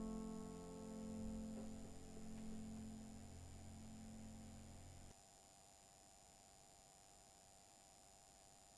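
Solo acoustic guitar background music ending, its last chord ringing out and fading away over about five seconds. Only faint steady background tone remains after it.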